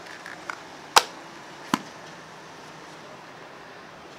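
Hard plastic clicks from a Poppit clay popper and its clear plastic mold being worked by hand: a few small clicks, a sharp one about a second in and another just under two seconds in.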